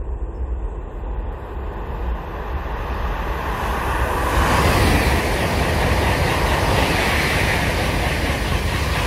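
KTX high-speed train coming out of a tunnel and passing close by at speed: a rushing noise of wheels on rail and air that swells over the first four to five seconds and then holds loud and steady.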